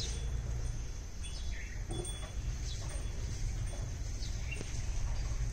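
Outdoor ambience: faint, scattered bird chirps, about one a second, over a steady low rumble and a thin high hiss.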